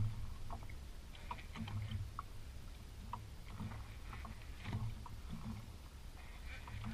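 Water lapping against an inflatable boat's hull, with irregular low knocks and faint scattered clicks.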